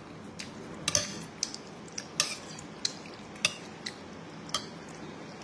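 Metal spoon clinking and scraping against a ceramic bowl of noodle soup as the food is stirred and scooped: a string of about nine sharp clinks spread over a few seconds.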